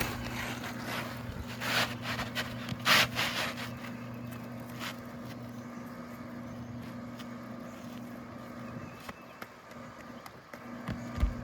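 A steady low mechanical hum, with a few scraping and rustling noises and clicks in the first three seconds as roofing shingles and tools are handled. The hum drops out briefly near the end.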